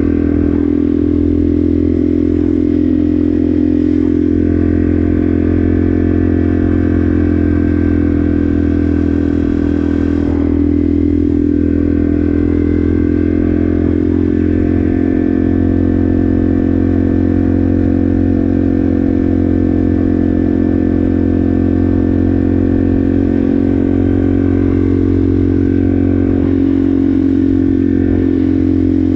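Yamaha TW200's air-cooled single-cylinder four-stroke engine running while the bike rides along at a steady road speed. The engine note holds an even pitch, with no revving up or down.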